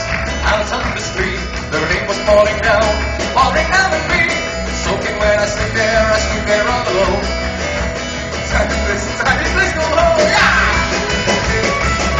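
Live folk-rock band playing with drums, guitars and fiddle, and a man singing into a microphone over a steady beat.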